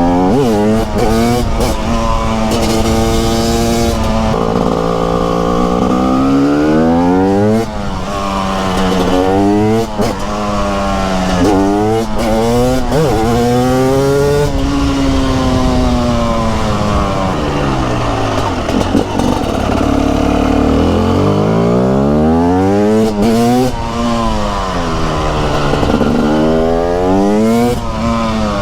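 Single-cylinder two-stroke engine of a TM SMR 300 supermoto, revving up through the gears and backing off again and again. Its pitch climbs in short runs, drops back at each shift, then falls away on closing the throttle.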